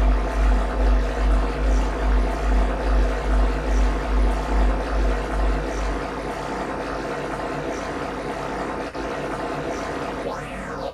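Improvised electronic noise music from live electronics and turntables: a deep throbbing pulse about twice a second under a dense, steady drone of several held tones. The pulse stops about six seconds in, leaving the drone, and sweeping high glides rise and fall near the end.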